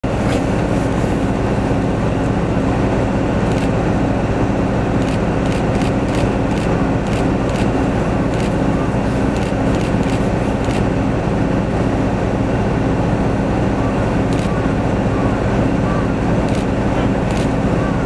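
Steady, loud low engine drone with a constant hum, and scattered sharp clicks over it.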